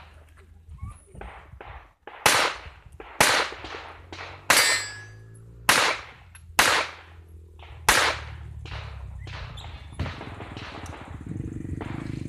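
Gunshots from a competitor shooting a practical-shooting stage: six loud shots about a second apart, each followed by a short echo, with fainter shots scattered around them.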